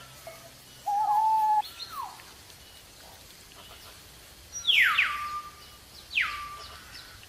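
Whistled bird calls: a short steady whistle about a second in, then two loud calls past the middle, each sweeping steeply down and levelling off into a brief held note.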